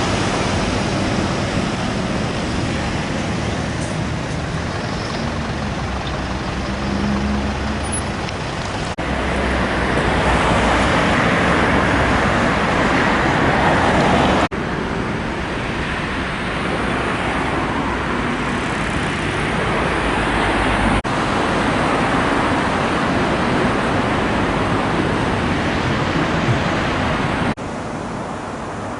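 Motor vehicle and road traffic noise: a steady engine and tyre rumble, broken by several abrupt cuts where the sound changes.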